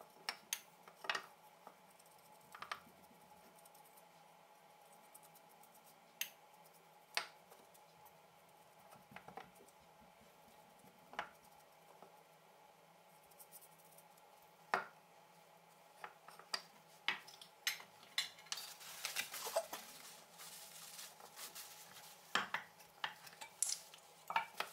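Wooden rifle stock being handled on a wooden workbench while a finish is rubbed into it with a gloved hand: scattered light knocks and clicks, with a short stretch of rubbing about three quarters of the way through.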